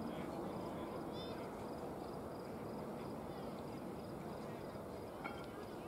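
Steady murmur of crowd chatter from the stands, with no single voice standing out. A faint high chirping repeats throughout, and a short high falling chirp comes about a second in.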